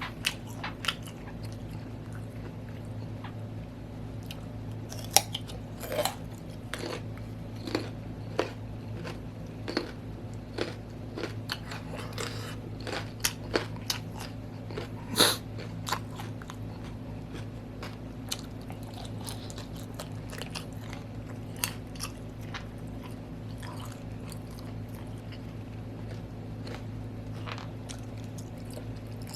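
Close-up mouth sounds of a person chewing and biting into food, with irregular wet clicks and smacks scattered throughout, over a steady low hum.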